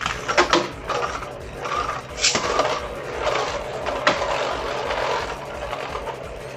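Two Beyblade tops battling in a plastic stadium: sharp clacks as they collide, several near the start and a couple more later, over a steady scraping whir of the spinning tops that slowly fades.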